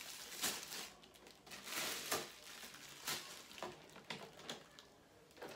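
Plastic packaging rustling and crinkling in short irregular bursts as products are handled and set down.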